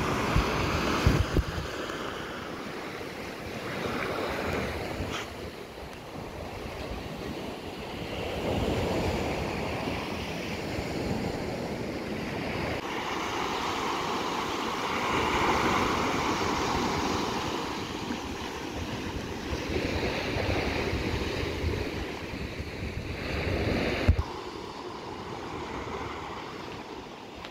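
Sea surf washing onto a sandy beach and around a jetty, rising and falling in slow swells, with wind buffeting the microphone. A single sharp knock about three-quarters of the way through.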